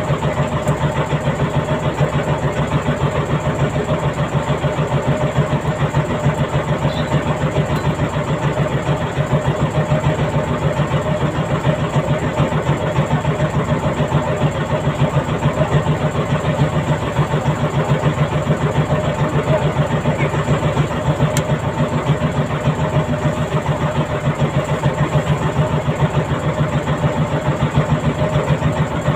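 Fishing trawler's inboard engine running steadily, with an even, rapid beat.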